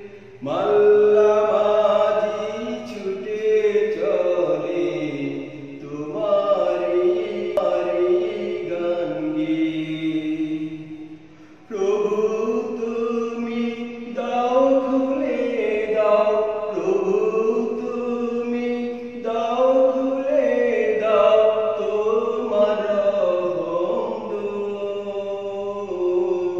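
A man singing a Bengali Islamic devotional song in a slow, chant-like style, holding long, wavering notes phrase after phrase, with a short break about eleven seconds in.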